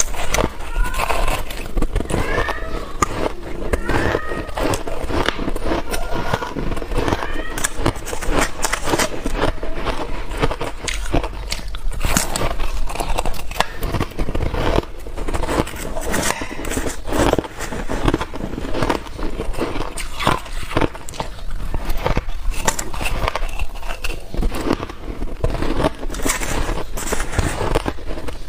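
Close-up crunching and chewing of soft, powdery freezer-frost ice: dense crackling bites, one after another.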